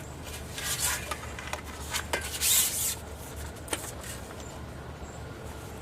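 Brief rustles and a few light clicks of fishing tackle being handled, over a steady low outdoor rumble.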